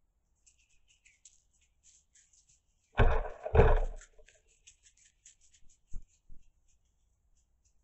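Roe deer moving through snowy undergrowth: faint crackling, then two loud dull thumps about half a second apart a few seconds in, and two softer knocks near the end.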